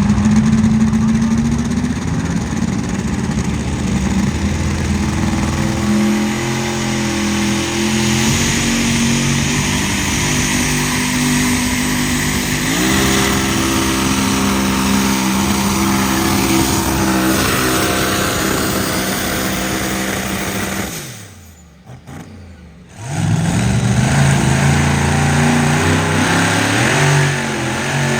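A pulling vehicle's engine running hard at high revs. Its pitch steps up about halfway through. Around three quarters of the way in the sound drops away sharply with falling pitch, and a loud engine picks up again about two seconds later.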